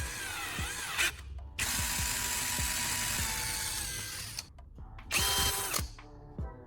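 Power drill fitted with a homemade hole-cutter bit, run in bursts: its motor whine glides in pitch at first, then runs steadily for about two and a half seconds, and there is a short final burst near the end.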